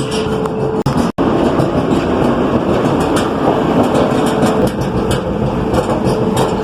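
Clothes dryer running with a loud, annoying noise and a faint steady hum. The noise comes from a drum support roller that is seized with hair and lint and worn.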